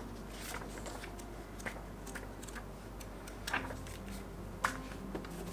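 Scattered light clicks and taps from handling the keyboard's paper manual and packaging, a few seconds apart.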